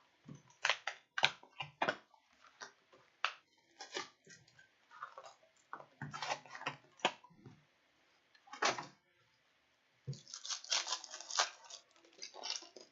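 Hands opening trading-card packaging: a string of short, sharp crinkles, clicks and tearing sounds from the box and foil pack wrappers, busiest near the end.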